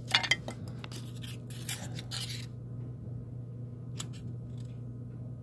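Foam pieces handled and rubbed against each other and against a wooden table: a run of short scratchy rubbing sounds in the first two and a half seconds, then a single light click about four seconds in, over a steady low hum.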